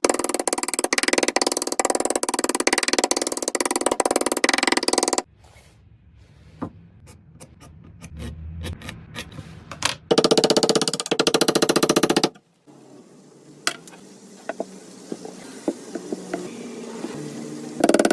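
Music with a fast drum beat that drops out twice, about five seconds in and again about twelve seconds in. In the quieter stretches left behind there are scattered sharp clicks and taps.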